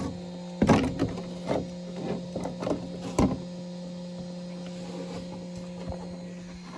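A steady electrical hum, with a few clicks and knocks of something being handled over it in the first half.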